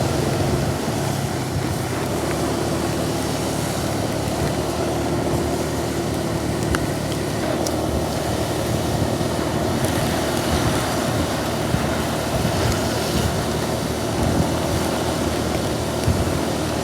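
Steady road traffic noise: vehicles running past.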